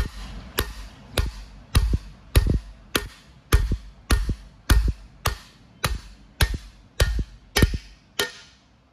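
A hammer striking a driving bar in steady blows a little over half a second apart, about fifteen in all, driving a new injector cup down into a Caterpillar C15 cylinder head until it bottoms out.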